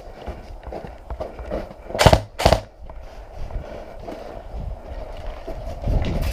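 Footsteps crunching over rough ground with gear rustling. About two seconds in come two loud sharp noises, half a second apart.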